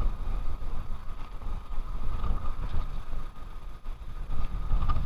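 Wind buffeting the microphone: an uneven low rumble that swells and drops, with a faint steady tone above it.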